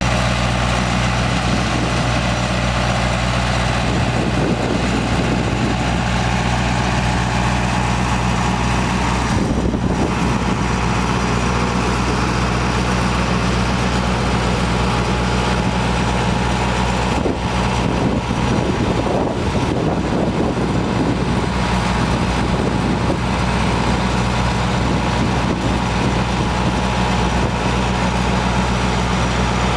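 Engine of a trailer-mounted flood pump running steadily at constant speed, a continuous low drone.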